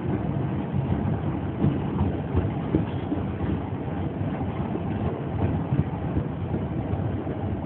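Coal hopper wagons of a freight train rolling past close by: a steady rumble of wheels on rail, with occasional sharper knocks.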